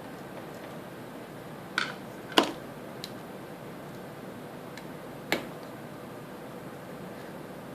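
Sharp clicks and taps of laptop parts and small tools being handled during reassembly of an HP Pavilion g6's cooling fan. There are three clear clicks, the loudest about two and a half seconds in, and a few fainter ticks over a steady hiss.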